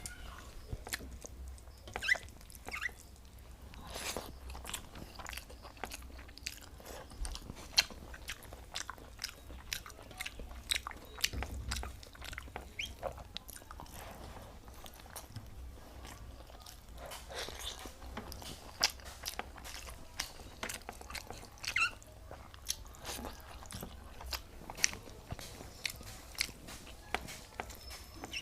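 A person eating rice with cauliflower, papaya and potato curry close to the microphone: chewing and mouth smacks, heard as many short, irregular clicks throughout.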